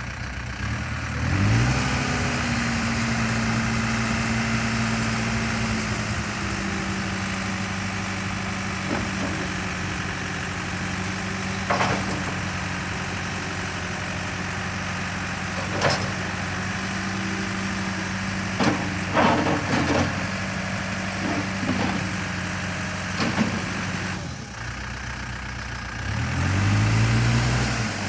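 Diesel engine of a 2006 Case 580 Super M loader backhoe revving up about a second in and running steadily at raised speed, easing slightly lower a few seconds later. In the middle come several sharp knocks. Near the end the engine drops back, then revs up again.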